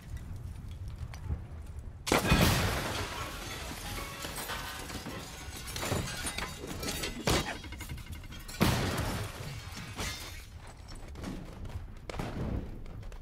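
Battle sound effects from a war film: a sudden explosion about two seconds in, then crashing and shattering debris, with more sharp blasts near the middle. Film score plays under the effects.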